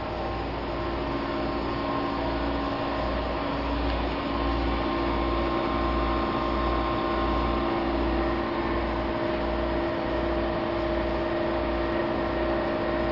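Pressroom machinery running steadily, from the offset press and its ancillary units: a hum with several steady tones over a low, unevenly pulsing throb. It grows slightly louder a few seconds in.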